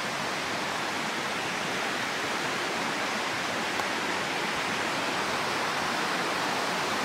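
River water rushing steadily over rocks and riffles, an even, unbroken hiss.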